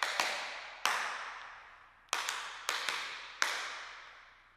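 Tap shoes' metal taps striking a wooden dance board in a double-shuffle-and-step rhythm. First comes a pair of quick taps and a single step. About two seconds in, two quick pairs and a step follow. Each tap rings out with a short echo.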